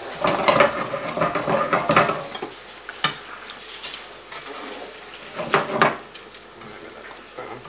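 A spatula stirring and scraping callaloo and saltfish around a frying pan while the food sizzles. A busy spell of scraping for the first two seconds or so, a single tap of the utensil on the pan about three seconds in, and a shorter burst of stirring just before six seconds.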